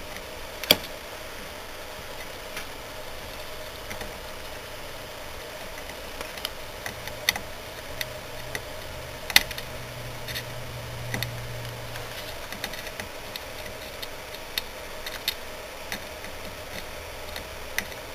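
Soldering iron tip clicking and scraping against the legs of a surface-mount chip on a circuit board as it is desoldered: irregular sharp ticks, the loudest about a second in and about halfway through, over a steady faint hum.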